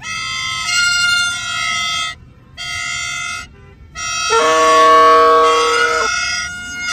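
Plastic toy trumpets (bajas) blown in long steady blasts, more than one at a time: a blast of about two seconds, a shorter one, then a louder one with a lower-pitched horn joining, followed by short toots near the end.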